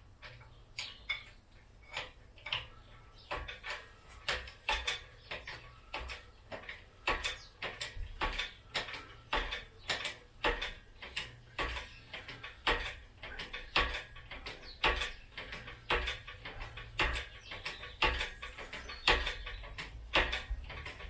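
Hand pump handle of a Sealey PH5 hydraulic engine crane being worked through full strokes with the relief valve open, to bleed air from the ram: a steady run of clicks, about two a second.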